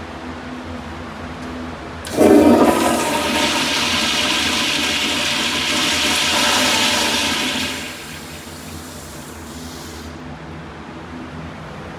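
Kohler Stratton commercial toilet flushing through its flush valve: a sudden loud gush of water, then a steady rushing hiss for about six seconds that falls away, with a fainter high hiss cutting off about two seconds later as the valve closes.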